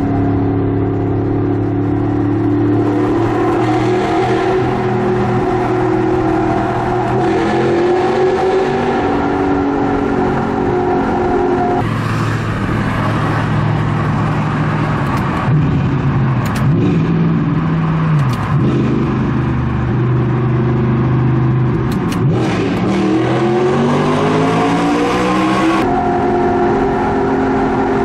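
Audi R8's 4.2-litre V8 with an Armytrix aftermarket exhaust, heard from inside the cabin in a road tunnel, revved hard through the gears. The engine pitch climbs and drops again several times, with a few sharp exhaust cracks on the lift-offs in the second half.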